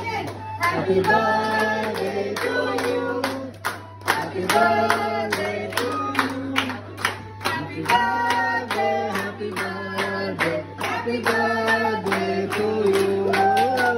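A birthday song with singing and music, and a group of people clapping along in time.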